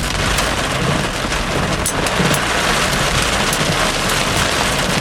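Heavy rain drumming on a car, heard from inside the cabin: a steady hiss with individual big drops striking, over a low rumble of the car.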